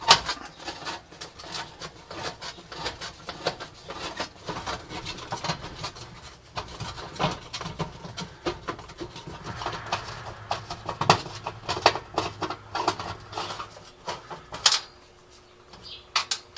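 Quarter-inch screws being backed out of an electric oven's bake element brackets with a hand nut driver: a steady run of small metal clicks and squeaks, with two sharper clicks near the end.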